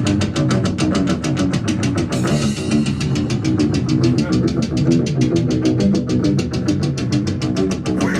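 Heavy metal band playing an instrumental passage: distorted electric guitars over a fast, even drum beat, whose high end drops out briefly about two seconds in.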